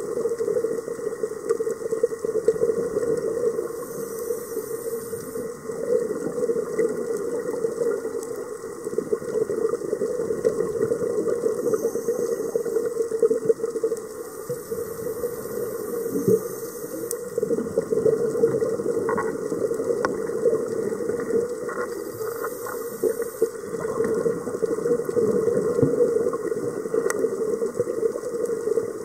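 Underwater sound heard through a camera housing: a scuba diver's regulator and the rush of exhaled bubbles. There is a steady hiss and hum, with a louder bubbling burst every several seconds.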